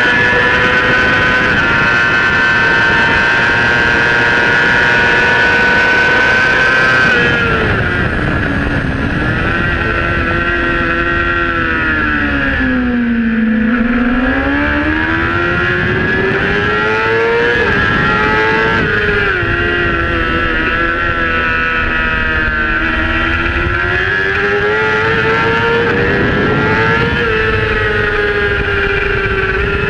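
Honda supersport race bike's inline-four engine held at high revs, then easing off for about six seconds into a corner, lowest a little past halfway, before accelerating out through several upshifts back to high revs. A steady wind rush runs under it.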